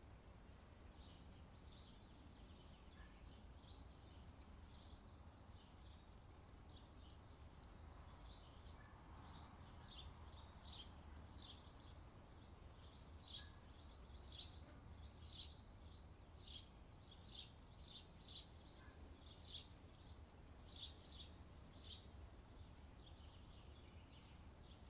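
Faint outdoor summer ambience: small birds chirping in short, high, scattered notes, busiest past the middle, over a low steady rumble.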